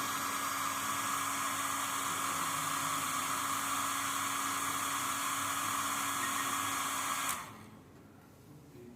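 Handheld electric hot-air blower running steadily with a whirring hiss and a faint whine, switched off about seven seconds in.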